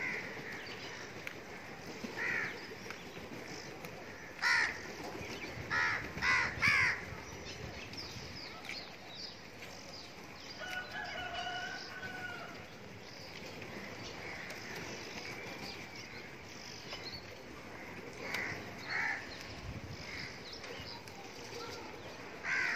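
Crows cawing in short, harsh calls that come in clusters, loudest a few seconds in and again near the end, with a longer held call in the middle.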